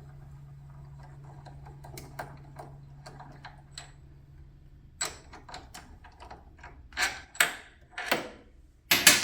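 Small metallic clicks and ticks from a socket wrench turning out a motorcycle's motor mount bolt, then several louder metal clinks and scrapes as the bolt is worked free and pulled out, from about five seconds in.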